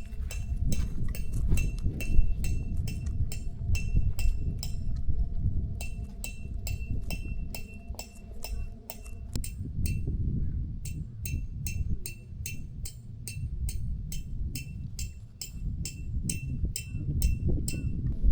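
A pet eating treats, with small metallic clinks about three times a second that pause briefly twice. A low rumble runs underneath.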